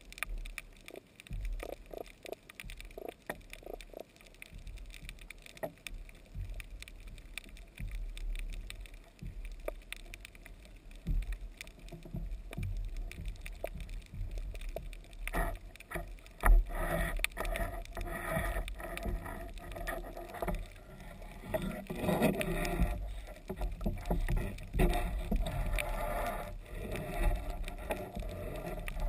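Water sloshing and splashing against the bow of a narrow paddled boat, with a low wind rumble on the microphone. It is light and sparse at first, then grows louder and busier from about halfway.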